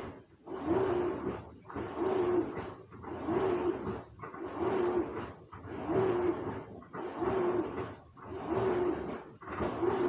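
Top-loading washing machine in its wash cycle, water sloshing in regular strokes about every 1.2 seconds as the drive reverses. Each stroke carries a short motor hum.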